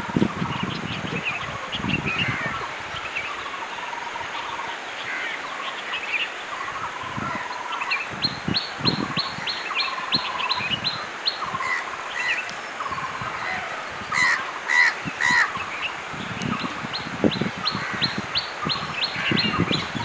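Several wild birds calling and singing together. A fast run of repeated short notes starts about eight seconds in, and louder calls come around fourteen to fifteen seconds.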